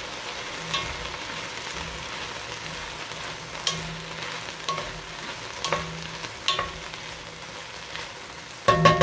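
Sliced onions sizzling in an enamelled cast-iron pot, roasting without oil with a little water just splashed in to lift the browned bits, while a hand stirs them, with a few light knocks against the pot. A loud clank of cookware with a short ring near the end.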